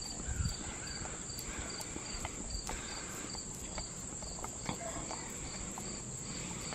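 A husky licking peanut butter off a rubber lick mat, faint wet licks and smacks, over steady high insect chirping with a short chirp repeating about three times a second.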